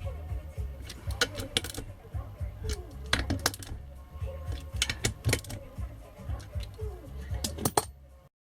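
Metal hand tools clicking and clinking against a Lambretta engine's fasteners as nuts are torqued down. The sharp clicks come in small groups a second or two apart over a low hum, and the sound cuts off suddenly near the end.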